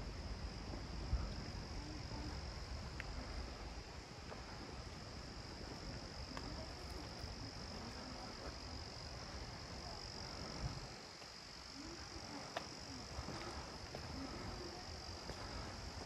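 Insects chirring in a steady, unbroken high-pitched drone, with low background rumble and a few faint knocks, the sharpest about a second in.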